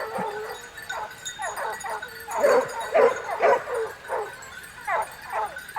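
A pack of hunting dogs baying and yelping, several voices overlapping in short repeated calls that come in bunches.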